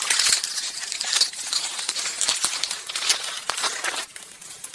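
Grass blades and dry leaves rustling and crackling against the camera's microphone as it is pushed in close at ground level, easing off near the end.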